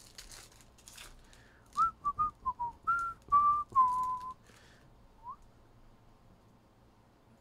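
A person whistling a short tune: about eight quick notes over two or three seconds, the last one held longer, then one short rising note about a second later.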